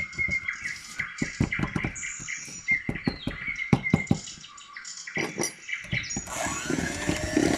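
A spatula scraping and knocking against a mixing bowl as cake batter is scraped down from the sides, in quick irregular clicks, with birds chirping in the background. About six seconds in, a steady motor hum starts suddenly, typical of an electric hand mixer switched on.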